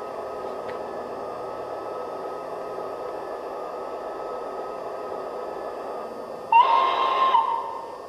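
Massoth eMotion XLS sound decoder in an LGB model of the RhB Ge 6/6 I 'Crocodile' locomotive, playing a steady hissing hum for the standing engine. About six and a half seconds in, a loud whistle blast sounds: it slides up slightly, then holds for just under a second.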